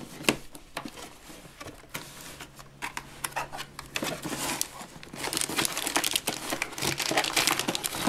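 Crinkling of a clear plastic bag and rustling of a cardboard box as toy pieces are pulled out of the packaging, with light clicks of handled plastic parts. The rustling grows denser and louder about five seconds in.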